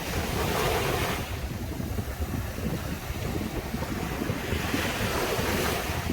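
Sea surf breaking and washing up a sandy beach. The wash swells twice, the second time about four and a half seconds in, over a steady deep rumble.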